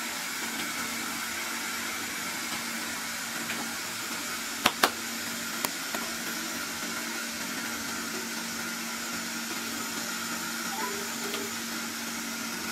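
Steady fan-like hiss and low electrical hum from a phone-repair workbench's running equipment. Two sharp clicks about four and a half seconds in, and a lighter one a second later.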